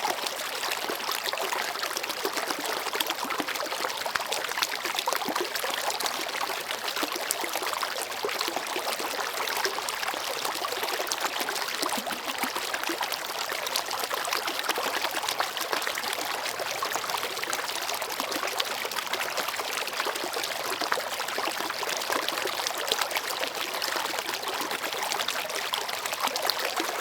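Shallow river or mountain stream babbling steadily over stones, an even bright rushing with fine trickling detail and little low rumble.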